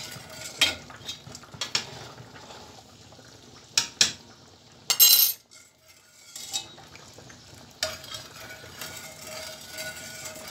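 A metal ladle knocks and scrapes against a steel pot of hot sugar syrup: a series of sharp clinks, the loudest about five seconds in. Near the end a steady, soft simmering hiss takes over as the syrup-soaked bread dessert cooks in its tray.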